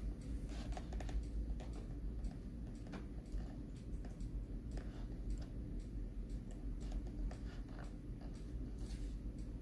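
Typing on a computer keyboard: irregular runs of light key clicks, over a low steady hum.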